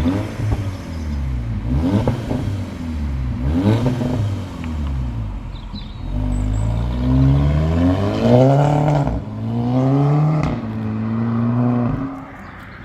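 Car engine revved through a freshly fitted free-flowing exhaust. There are three quick blips, then two longer climbs in revs, before it falls back to idle near the end.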